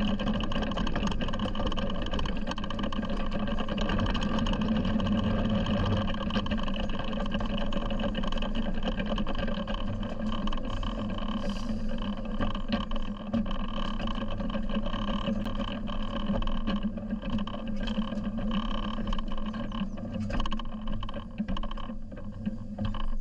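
7¼ inch gauge miniature locomotive running steadily along the track, with wheels rumbling on the rails. The sound becomes more uneven over the last few seconds.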